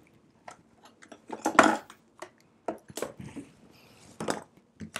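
Clicks and light clatter of small tools and parts being handled and set down on a workbench, with a louder scrape about a second and a half in.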